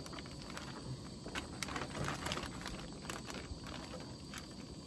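Clear plastic zip-top bag crinkling and rustling as it is handled and pulled open, with many small irregular crackly ticks.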